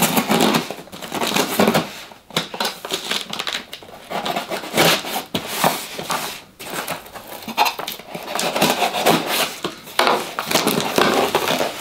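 A knife slicing through the packing tape on a cardboard box, then irregular scratching, ripping and knocking as hands work the tape and cardboard.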